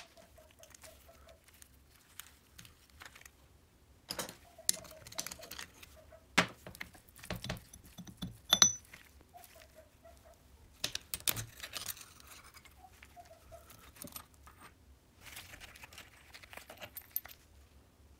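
Metal clinks, taps and scrapes of hand work on a Riga 12 moped's aluminium engine crankcase as the large gear is taken off, with a few sharp metal knocks about halfway through.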